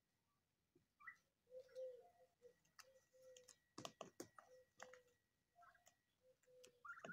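Domestic turkeys pecking at sprouted wheat grass in a plastic crate: faint scattered clicks, a cluster of sharper ones about four seconds in, with soft short low calls from the flock.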